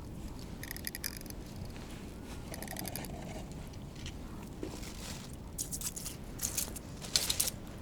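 Crunching and scraping on snow and ice, in scattered short bursts that get louder near the end, over a steady low rumble of wind on the microphone.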